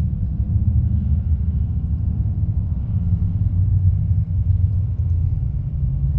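Steady low outdoor rumble with a fluttering level and nothing sharper over it.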